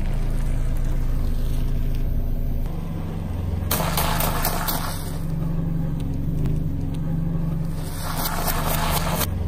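Car engine idling with a steady low hum while a tyre rolls slowly over food. Crisp crunching and crackling comes twice, about four seconds in and again near the end, as the tyre crushes small crunchy bread-shaped snacks.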